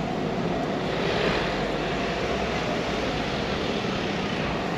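Steady rushing noise of a city bike ride: wind and passing traffic, swelling slightly about a second in.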